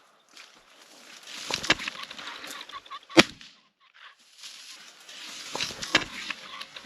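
Rooster pheasant cackling as it flushes, over rustling through dry cover, with a single loud shotgun shot about three seconds in.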